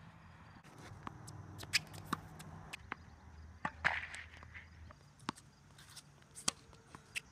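Tennis being played on an outdoor hard court: a string of sharp, irregularly spaced pops and taps from the ball being struck and bouncing, and from footsteps.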